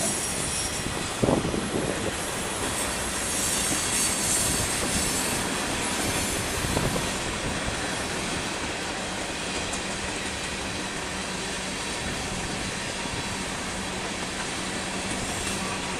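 Freight cars of a manifest train rolling past on a sharp curve, with a steady rumble of wheels on rail and a high wheel squeal. There is a sharp knock about a second in.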